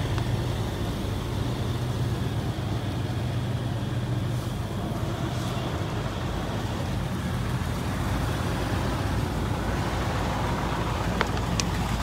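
Toyota Land Cruiser's V6 engine idling steadily, a constant low hum, with two short sharp clicks near the end.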